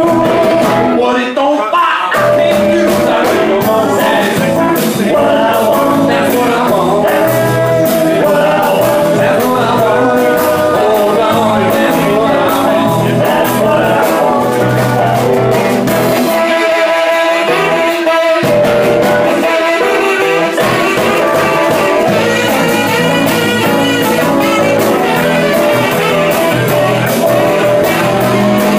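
Live band playing: electric guitars, saxophone, keyboard and drums, with a wavering saxophone melody line over the groove. About halfway through, the bass and drums drop out for a couple of seconds, then come back in.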